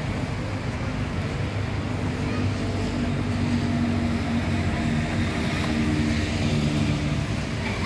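Steady low rumble of wind buffeting the microphone over outdoor background noise, with a faint steady hum from about two seconds in until near the end.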